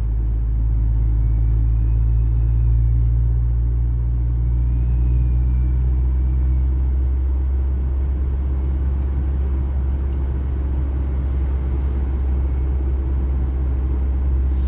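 Steady low rumble of a moving vehicle, with a low drone that changes about halfway through.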